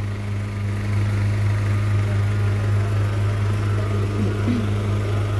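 A flatbed delivery truck's engine idling with a steady, even hum.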